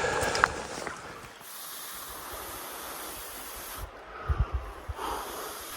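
Steady rushing hiss of a creek flowing, with a few low bumps on the microphone about four seconds in.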